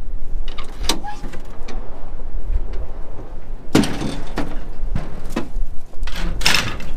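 Metal clanks and rattles from a livestock trailer's aluminium gate and panels, loudest about four seconds in and again near the end, over a steady low rumble of wind on the microphone.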